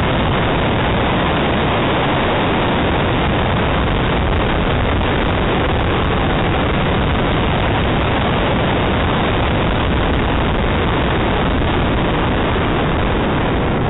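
Ford Escort RS2000 driving a slalom course, heard through its roof-mounted camera as a steady, loud, even rush of wind and car noise in which no clear engine note stands out.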